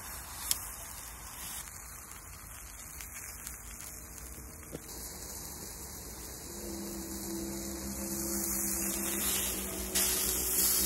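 Meat searing in a frying pan over a campfire: a steady sizzling hiss that grows louder about six and a half seconds in and jumps louder again near the end. A low steady hum comes in alongside it at about the same time.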